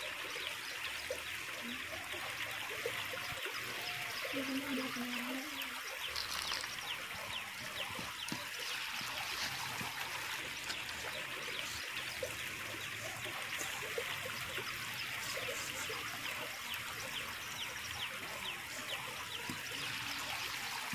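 Hands mixing and kneading a crumbly dough of grated cauliflower and wheat flour in a stainless steel plate: a steady scratchy rustle full of small crackles.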